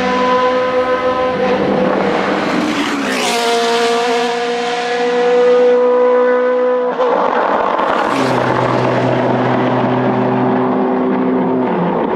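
Zytek V8 engine of the MG-AR1 Furore race car running at steady revs as it passes, its note falling in pitch about two to three seconds in. After a sudden change about seven seconds in, the V8 holds a lower, steady note.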